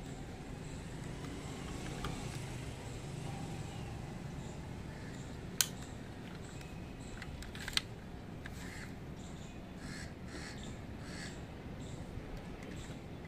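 Two sharp clicks about two seconds apart as a diecast model car is handled, then a run of faint repeated bird calls in the background.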